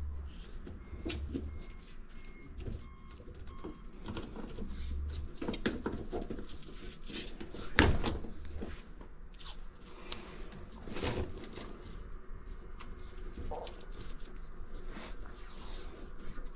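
Scattered knocks, cracks and scraping as pieces of a rotten wooden subfloor and debris are handled and pulled out by hand, with one sharper knock about eight seconds in.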